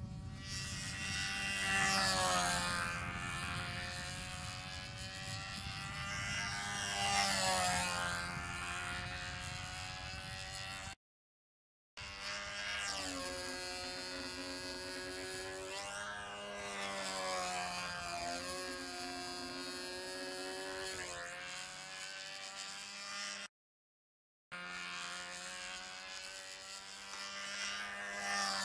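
Control-line stunt model airplane's engine running at flying power as the plane circles and manoeuvres on its lines, the buzzing pitch rising and falling every few seconds as it passes around. The sound cuts out completely twice for about a second.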